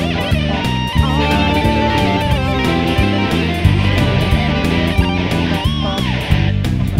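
Rock background music: electric guitar and bass over a steady drum beat.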